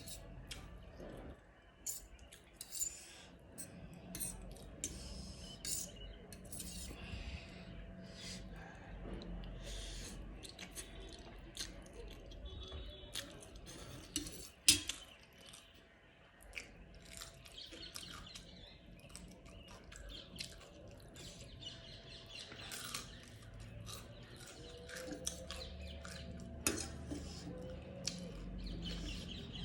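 Close-up eating sounds: chewing, with cutlery clinking and scraping against a dish in short, irregular strokes and one sharp clink about halfway through.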